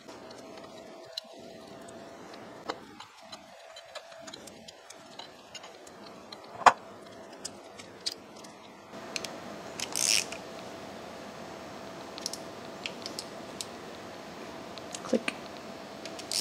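Hand tools clinking against the cast-iron gearbox cover of a milling machine as its bolts are worked with a T-handle hex key and a socket wrench: scattered small metallic clicks, a sharper click about six seconds in, and a brief jingle of tools around ten seconds. A faint steady hum runs underneath.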